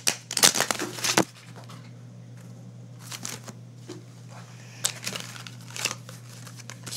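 A deck of playing cards being shuffled by hand: a quick run of sharp card flicks in the first second or so, then scattered softer clicks and slides of cards being handled about three and five to six seconds in. A steady low hum runs underneath.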